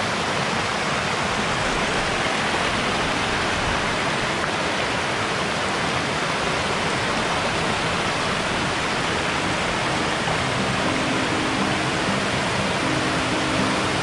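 Waterfall: a steady, even rush of falling water, with music coming in faintly near the end.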